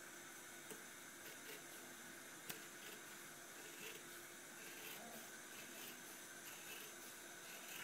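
Faint snipping of large scissors cutting through black leather, over a steady low hiss, with one sharper click about two and a half seconds in.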